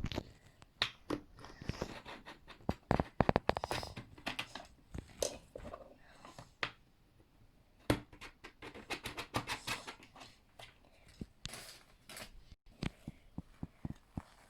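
Irregular small clicks, taps and brief rubbing as the plastic parts of a toy screen-printing set are handled and worked.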